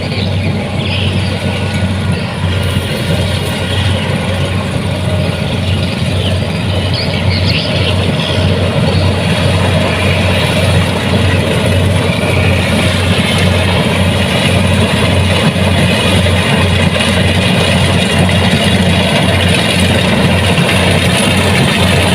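Kubota DC-70 Plus combine harvester's diesel engine running steadily, a low drone with a broad mechanical rattle of the machinery above it.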